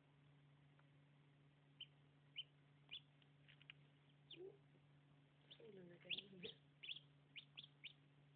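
Newly hatching chicks, a Black Rock × Old English Game cross, peeping: a run of short, high chirps starting about two seconds in and coming quicker near the end, over a steady low hum.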